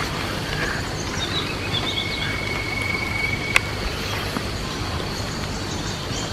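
Outdoor ambience: a steady high insect drone and a few short bird-like chirps over a low steady hum, with one sharp click about halfway through.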